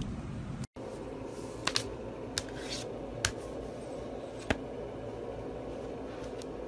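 A handful of sharp, separate clicks, most of them in the first half, over a steady low room hum. The sound cuts out briefly under a second in.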